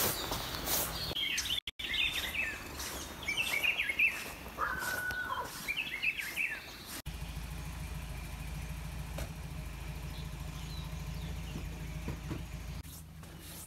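Birds chirping and singing in short, quick up-and-down phrases. About halfway through this gives way abruptly to a steady low rumble that lasts most of the rest.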